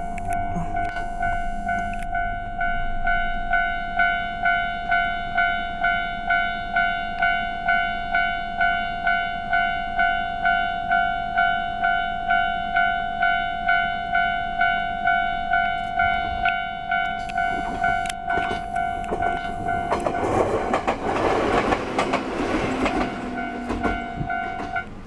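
Japanese railway level-crossing alarm ringing its repeated electronic 'kan-kan' tone, just under two strikes a second. About 20 seconds in, a train's passing rush is heard over the continuing alarm.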